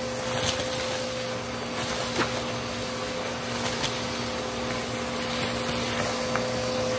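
Vacuum cleaner running steadily with a crevice tool on a shag rug: a constant motor whine and suction rush, with a few sharp clicks and crackles as grit and tiny rubber bands are sucked up the tool.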